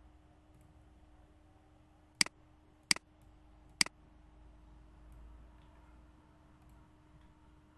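Three sharp computer mouse clicks, about two to three seconds in, over a faint steady electrical hum.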